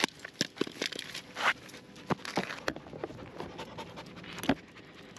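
German Shepherd puppy panting right at the microphone, in short breathy bursts, mixed with scattered clicks and rustles as the dog is handled against the camera.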